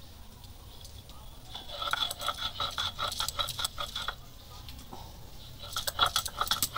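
Stone roller being pushed back and forth over soaked red lentils on a wooden board, grinding them coarse: a quick rhythmic run of gritty strokes with light clinks, starting after a second or so, pausing, and picking up again near the end.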